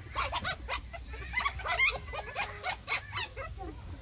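Newborn puppies squealing and whining in a rapid string of short, high cries. The owner takes them to be hungry.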